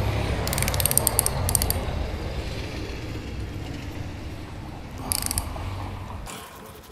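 Hand ratchet clicking while 10 mm bolts on an LT4 supercharger are loosened: a quick run of clicks in the first two seconds and another short run a little past five seconds in. A steady low hum underneath cuts out near the end.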